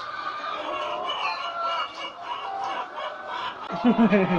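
A large flock of White Leghorn laying hens clucking and calling over one another in a poultry house. A person's voice breaks in briefly near the end.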